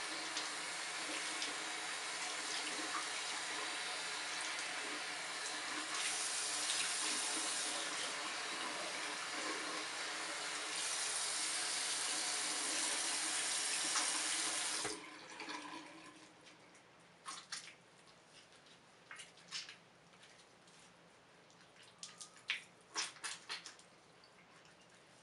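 Bathroom sink faucet running, with water splashing onto a wet kitten's fur and hands. It gets louder in two stretches, then the tap shuts off suddenly about fifteen seconds in. After that come scattered short wet sounds as the water is squeezed out of the fur.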